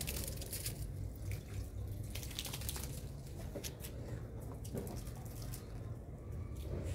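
Water trickling and dripping onto wet concrete after a dog's bath, with scattered small clicks and knocks.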